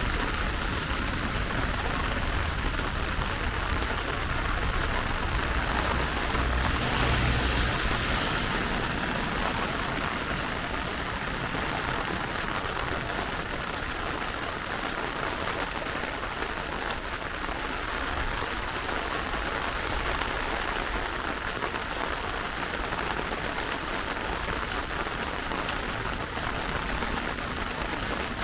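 Steady rain falling, an even hiss of drops. A low rumble swells under it in the first few seconds, loudest about seven seconds in, then fades.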